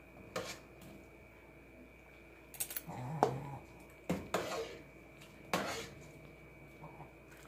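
Metal ladle clinking and knocking against a stainless steel cooking pot while chicken and vegetables are scooped out into a serving bowl: about six sharp knocks, the loudest about three seconds in, after a short quiet stretch.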